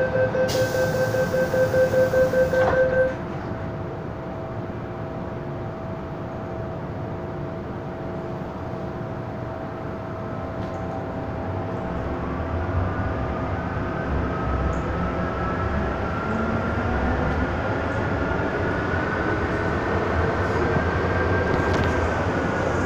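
MTR M-Train door-closing warning beeps, a fast pulsing tone for about three seconds. The train then pulls away, its traction motors' whine rising steadily in pitch as it accelerates over rumbling running noise.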